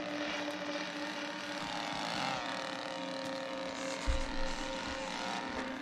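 Chainsaw engine running steadily at one pitch, heard on the film's soundtrack, with a dull thump about four seconds in.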